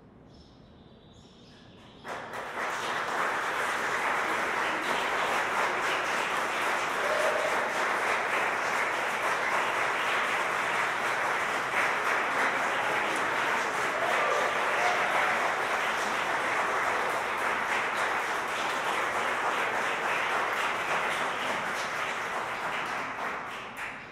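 Audience applauding, beginning suddenly about two seconds in after a brief hush and dying away near the end.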